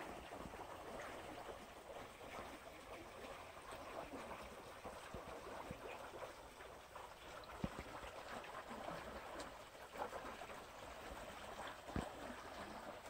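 Faint, steady rush of flowing canal water, with a couple of small knocks about halfway through and again near the end.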